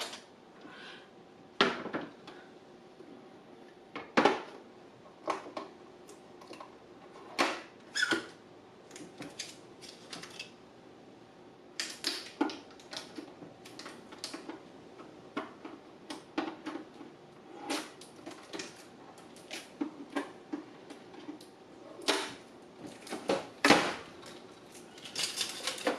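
Irregular clicks and knocks from parts being handled, removed and fitted on a Brother SE700 sewing and embroidery machine while it is set up for embroidery. The clicks are spread unevenly, with a few louder knocks.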